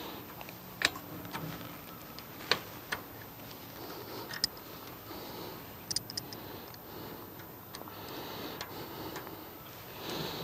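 Sharp metal clicks and ticks at irregular intervals, a handful over several seconds, as a hand-held clip bender twists wire fence clips around a steel T-post to fasten woven wire fencing.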